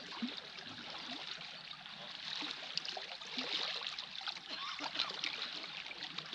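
Calm sea water lapping and trickling among the boulders of a rocky shore: a steady wash of small splashes and gurgles.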